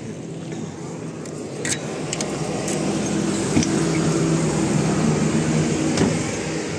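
A truck cab's door lock and handle clicking and clunking as the door is unlocked and opened, with several sharp clicks. Under them runs a steady engine hum that grows louder about two seconds in.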